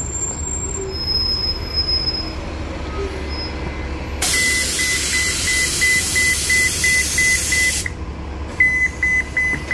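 Transit bus kneeling: a loud hiss of air venting from the air suspension, with a high warning beeper sounding about three times a second. The hiss cuts off suddenly after about four seconds, and the beeper starts again shortly after, a little faster.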